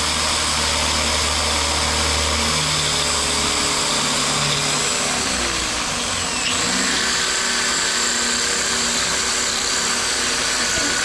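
Electric drill running steadily as it bores a hole for a wall mount, its motor pitch dipping about halfway through as the bit bites.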